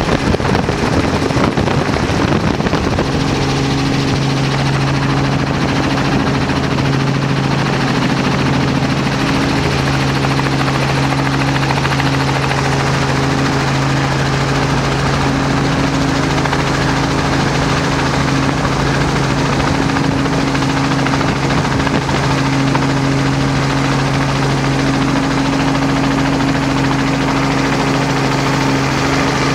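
Motorboat engine running steadily at speed, a constant low drone over rushing water and wind noise.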